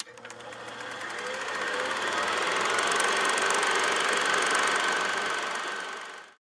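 Film-projector-style mechanical clatter: a fast, even rattle of ticks that swells over the first few seconds and fades away near the end.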